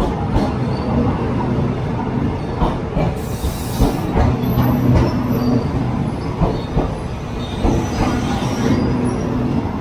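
Overnight passenger sleeper train pulling in along the platform, its carriages' wheels running over the rails with a steady rumble and irregular clicks and knocks.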